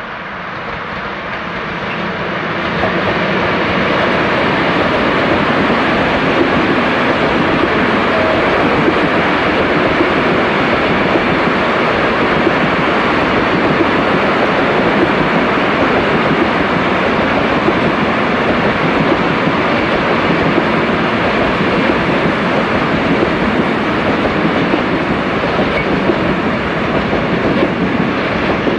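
Freight train of loaded Eanos and Eas open wagons rolling past, with a steady clatter of wheels on the rails. The sound builds over the first few seconds, then holds loud and even.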